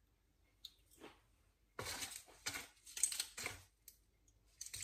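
Quiet, irregular clicks and rustles of small items being handled as medicine capsules are taken out. A few faint clicks come first, then a run of short rustling, clinking sounds from about two seconds in.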